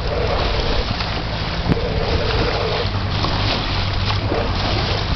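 Boat engine running steadily, with wind blowing across the microphone.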